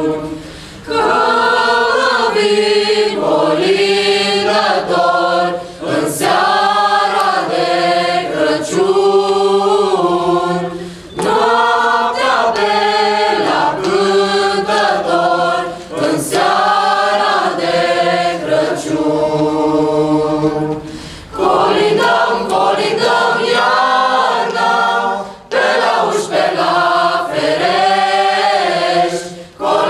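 Youth choir of mixed voices singing a Romanian Christmas carol (colind) unaccompanied, in phrases of a few seconds with brief pauses for breath between them.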